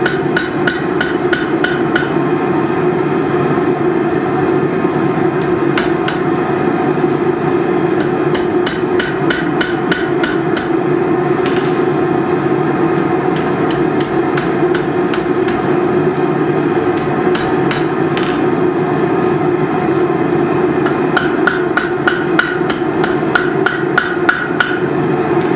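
Hammer blows on steel at the anvil while forging, in several runs of quick ringing strikes, about four a second, over a steady low roar.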